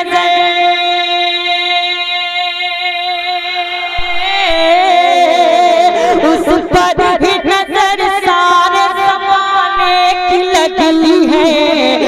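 Naat singing by a solo voice: one long note held for about four seconds, then ornamented melodic runs that bend up and down in pitch.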